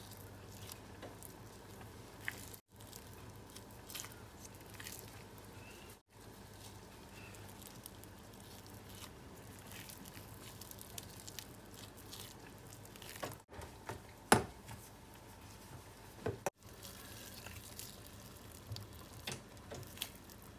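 Minced-pork meatballs being squeezed from a gloved hand and dropped off a metal spoon into a stainless-steel pot of simmering broth: faint squishing and small watery plops, with a few light clicks of the spoon on the pot, the sharpest about fourteen seconds in.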